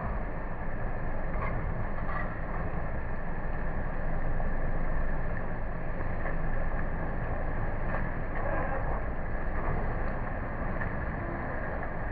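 Diesel engines of heavy loaded dump trucks running with a steady low rumble.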